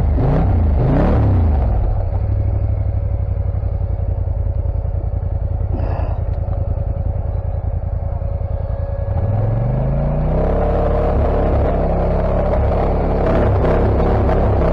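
ATV engine revving while the quad sits sunk nose-deep in a mud hole: the revs rise and fall in the first second or two, settle to a steady run, then climb about nine seconds in and hold higher, with clattering near the end.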